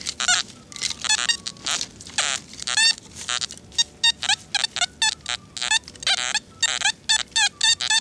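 A flock of birds calling, many loud overlapping calls following each other several times a second.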